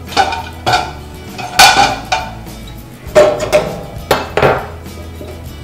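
Metal kitchen utensils clattering and clinking against a stainless steel drainboard as they are handled: several separate clanks about a second apart, each with a short metallic ring.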